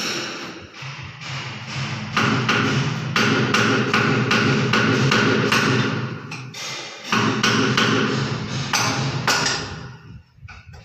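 Hammer striking a steel punch, rapid repeated blows of about two to three a second with short pauses, each blow ringing on: the punch is being driven against a broken threaded fitting stub stuck inside a wall pipe socket to work it loose.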